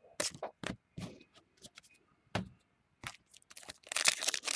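Trading cards being handled, with a few light taps and clicks. From about three and a half seconds in, a foil card pack crinkles and crackles more and more as it is torn open.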